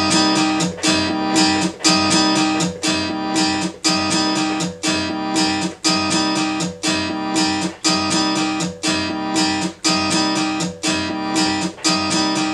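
A sampled strummed guitar loop playing in a steady repeating rhythm from Reason's Dr. Octo Rex loop player, with the loop's first slice reversed.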